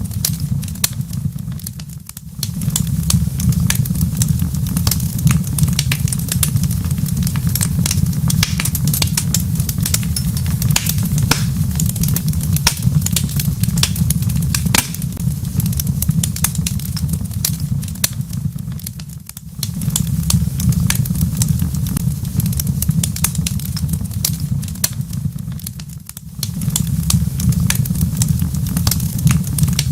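Wood fire in a fireplace crackling and popping constantly over a steady low rumble, which briefly drops away three times.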